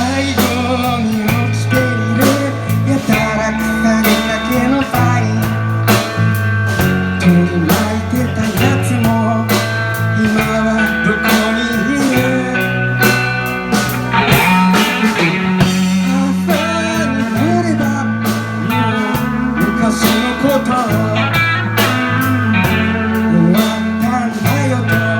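Blues-rock band music: electric guitar over a stepping bass line and a steady drum beat.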